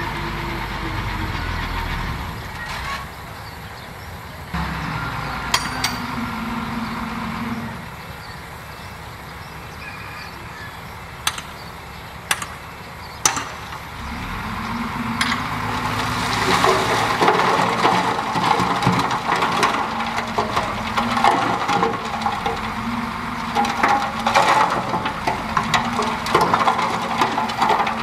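Heavy diesel earthmoving machinery at work, a bulldozer with dump trucks: engines running with pitch rising and falling, a few sharp metal clanks in the middle. From about halfway on, a dense clattering and scraping of tracks and dirt takes over.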